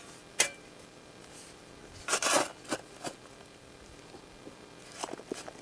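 Intermittent scraping and rustling with a few sharp clicks, the loudest a short scrape about two seconds in.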